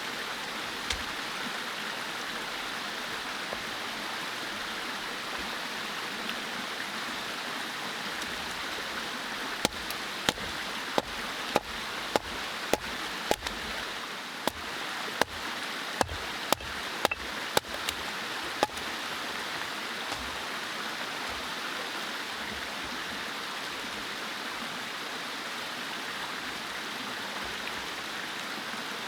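Mountain stream flowing steadily. In the middle, a run of about fifteen sharp knocks comes roughly every half second to second.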